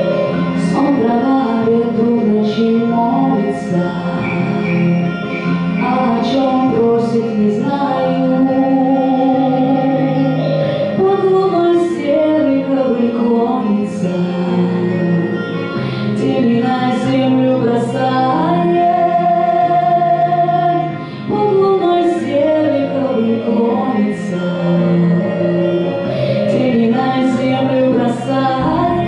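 A woman singing a song with instrumental accompaniment, the melody gliding up and down with a long held note a little past the middle.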